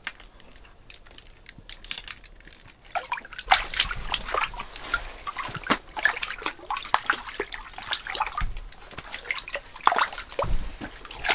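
A crappie splashing and thrashing in the water of an ice-fishing hole as it is reeled up and pulled out through the hole. The splashing starts about three seconds in and carries on in quick, irregular bursts.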